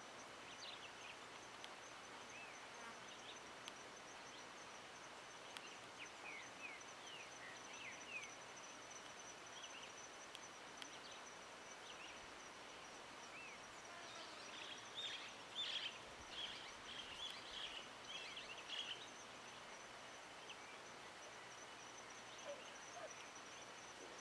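Faint outdoor ambience: small birds chirping and whistling on and off, most busily about two-thirds of the way through, over a steady high-pitched buzz.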